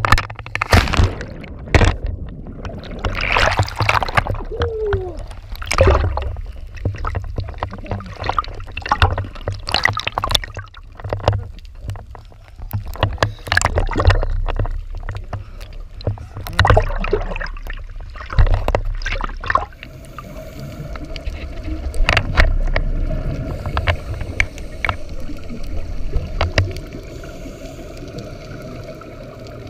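A splash as the camera goes under the sea surface. Then muffled underwater bubbling and gurgling from a scuba diver's exhaled regulator bubbles comes in irregular bursts, settling to a steadier muffled underwater rush in the last ten seconds or so.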